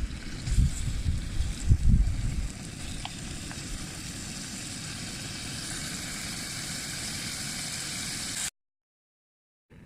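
Strong wind buffeting the microphone for the first couple of seconds, then a steady hiss with a few faint crackles from a campfire burning wet firewood. The sound cuts off abruptly near the end.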